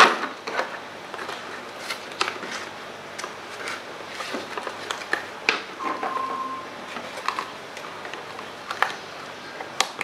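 Handling of a cardboard-and-plastic doll box as the doll is worked free of its packaging: scattered small clicks and crinkles, the sharpest right at the start.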